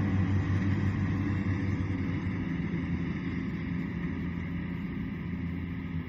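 Kubota DC-70 rice combine harvester's diesel engine and threshing machinery running steadily at a distance as a low, even drone that slowly grows quieter.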